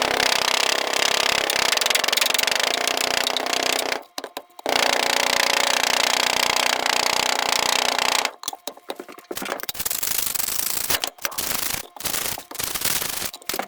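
Raw chicken being flattened for burger patties: a rough rubbing, scraping noise in two long stretches, then in a string of short strokes over the last few seconds.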